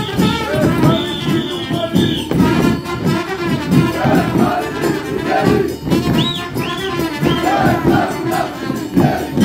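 Lively folk dance music with a fast, steady beat and a melody line above it, with three short rising-and-falling high notes about six seconds in.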